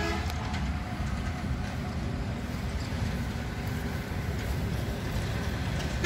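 Steady low outdoor rumble with a faint hiss above it, with no distinct events.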